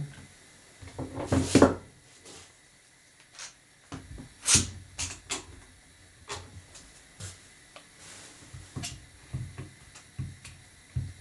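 One-handed bar clamps being repositioned and squeezed tight on a board at a workbench: a string of separate clicks and knocks, the loudest about four and a half seconds in.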